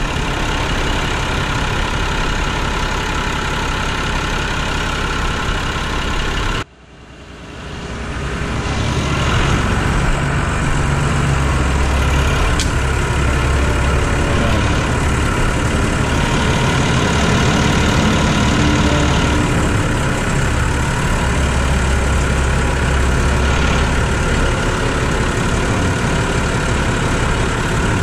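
Massey Ferguson 6170 tractor's diesel engine running steadily while its forklift attachment unloads a plough. The engine note strengthens at times. The sound cuts out briefly about seven seconds in.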